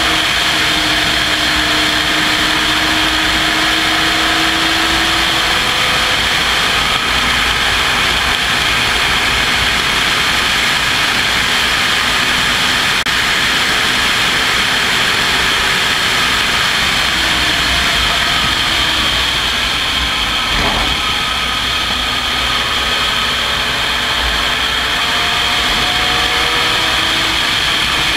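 Open-cockpit race car at racing speed, heard onboard: loud, steady engine noise mixed with wind rushing over the exposed camera. The engine pitch slowly climbs and drops with the throttle and gear changes.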